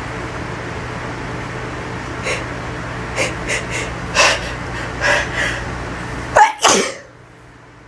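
A woman's several short, catching breaths build up to one powerful allergy sneeze near the end, from pollen. A steady low hum in the background cuts off right after the sneeze.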